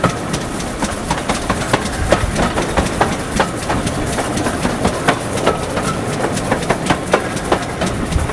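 A steam-hauled train running along the line behind GWR 4500-class small prairie tank locomotive 4566, heard from an open carriage window close behind the engine. There is a steady rush of wind and running noise, with many sharp clicks of wheels over rail joints, several a second.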